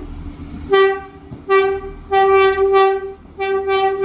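Irish Rail train horn sounding a single note in a series of blasts: two short toots in the first two seconds, a longer one, then another that is still sounding at the end.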